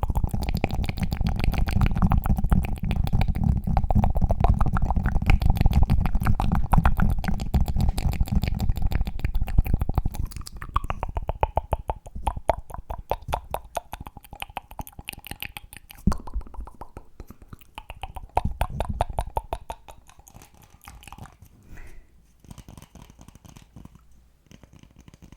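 Close-miked ASMR trigger sounds: a fast, dense run of clicks and pops, loud for about the first ten seconds, then sparser and quieter.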